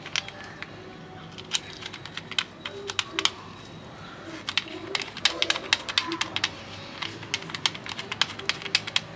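Irregular sharp clicks and taps of plastic and metal as the high-pressure hose's brass end fitting is pushed and twisted into the pressure washer spray gun's coupling.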